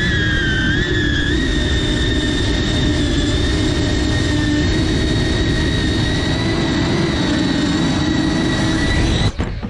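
FPV racing quadcopter's motors and propellers whirring with a steady high whine as it flies. Near the end the whine cuts off suddenly with a short knock, as the drone sets down and its motors stop.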